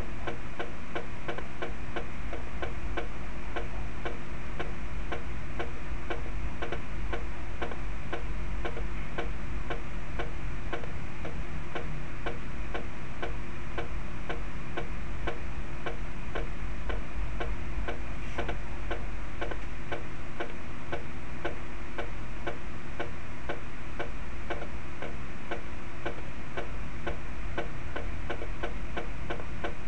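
Computer playback of a snare drum stick-control exercise: an even, unbroken stream of single strokes in triplets at a slow metronome tempo.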